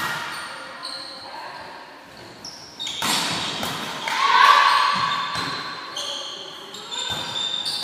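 Volleyball rally in a large echoing sports hall: the ball struck with sharp smacks, the loudest about three seconds in, shoes squeaking on the court floor, and a player's loud shout a little after.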